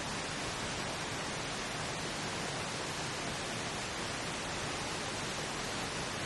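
Steady synthetic pink noise: an even, unchanging hiss. It is the masking bed of a subliminal affirmation track.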